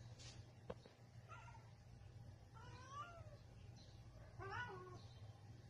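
Female domestic cat in heat yowling: three faint, drawn-out mating calls about a second and a half apart, each bending up and down in pitch. A single sharp click comes just before the first call.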